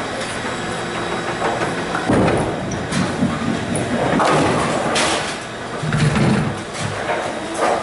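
Bowling ball rolling down a wooden lane and reaching a single standing pin, then the Brunswick pinsetter's sweep dropping and its machinery rumbling, with knocks and clatter from the lanes around.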